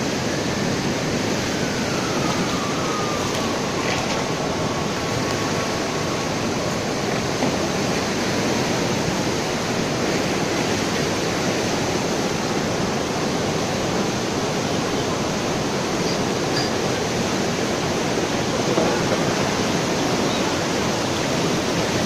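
Floodwater from an overflowing river rushing steadily across a street. A faint thin tone falls and levels off in the first few seconds.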